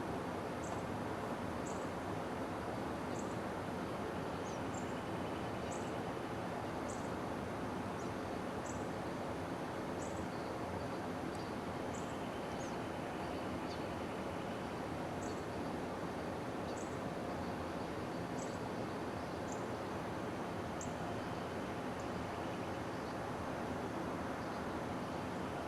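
Steady outdoor background noise with a small bird repeating short, high chirps about once a second.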